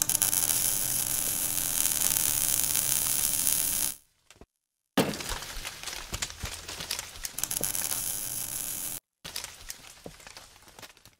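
Crackling and buzzing of an electric welding arc, dense sharp crackles over a steady hum, in three runs: about four seconds, a short break, about four seconds more, then a quieter two-second run.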